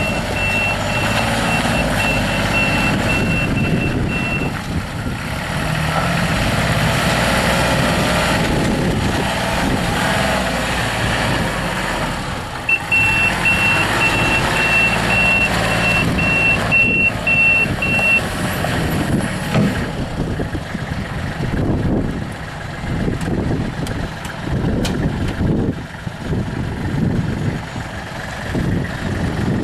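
Kubota L35 tractor loader backhoe's diesel engine running, with its backup alarm beeping about twice a second while reversing; the beeping stops after about four seconds, comes back about halfway through for roughly five seconds, then stops again.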